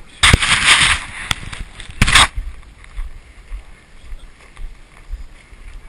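Two loud bursts of rustling, scraping noise right at the microphone: one of about three-quarters of a second just after the start, and a short one about two seconds in. Between and after them is faint footfall and wind noise from walking on a dirt trail.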